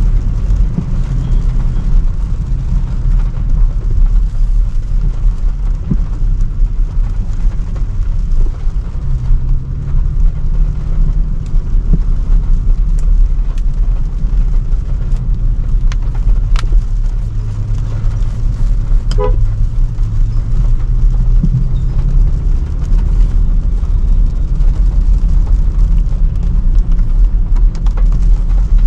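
Range Rover Sport driving in traffic: a steady, heavy low rumble of engine and road noise with a drone that shifts in pitch. A short car-horn toot sounds about two-thirds of the way through.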